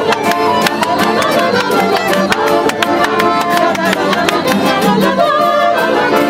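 A mixed group of men and women singing a song together to brisk strumming on acoustic guitars.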